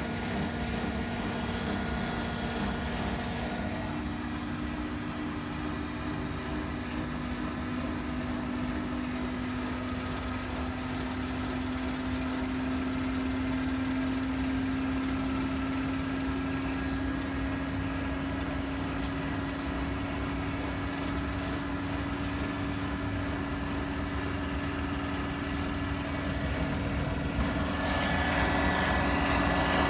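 Bosch washing machine drain pump running in its service-mode test after unclogging: a steady hum whose pitch creeps up slightly. Near the end a louder rushing noise joins it.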